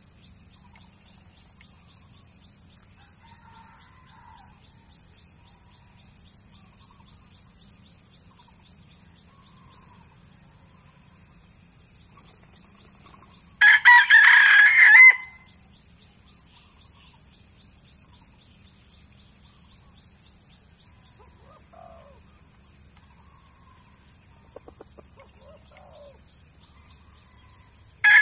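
Red junglefowl rooster crowing once about halfway through, a short crow of under two seconds, and starting another crow at the very end. A steady high-pitched drone and faint scattered bird chirps run underneath.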